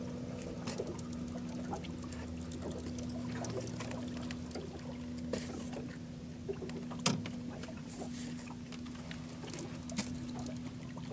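Fishing reel clicking and ticking irregularly while a hooked fish is pumped and reeled in on a bent rod, over a steady low hum and light patter of water. One sharper knock about seven seconds in.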